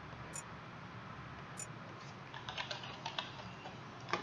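Faint computer keyboard typing: a short run of key clicks about two seconds in and a single sharper click near the end, over low steady room hum.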